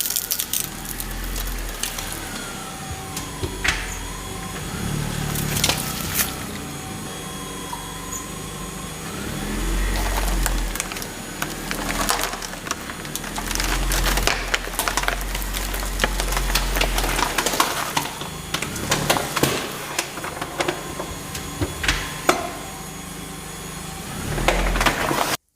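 Car tyres rolling over and crushing brittle objects: a long run of cracking, snapping and splintering, with low rumbles from the car now and then.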